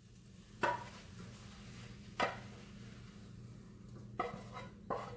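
A spatula knocking and scraping against a square copper-coloured nonstick frying pan as food is scraped out of it: about five short, sharp clicks spread out, with a low steady hum underneath.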